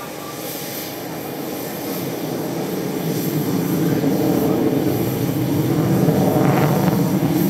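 Twin Saturn AL-31FP afterburning turbofans of a Sukhoi Su-30MKM in display flight: a loud, rough jet rumble that grows steadily louder over the first few seconds and then holds.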